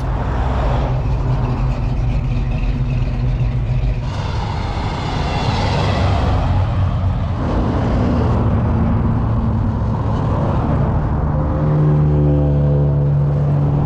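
Car engines running and revving, changing abruptly several times as one car's engine gives way to another's.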